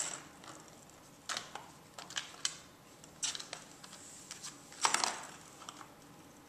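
Kittens playing at a plastic ring-shaped track toy on a hardwood floor: irregular clicks and clatters of plastic and paws, the loudest about five seconds in.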